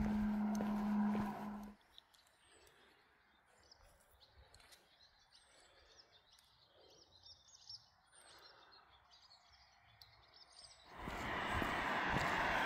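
Loud rushing road noise with a steady hum cuts off just under two seconds in, leaving faint small birds chirping, with several short falling whistles. About eleven seconds in, a loud even rushing of road traffic comes back.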